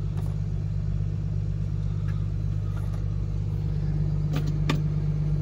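Steady low drone of a running motor inside the tool truck, with two light clicks a little over four seconds in as a chrome deep socket is handled.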